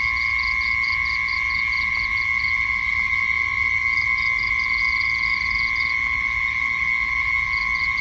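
Night insect chorus: a steady, high-pitched drone with a rapid pulsing chirp above it that fades out about two and a half seconds in and returns in the middle and again near the end.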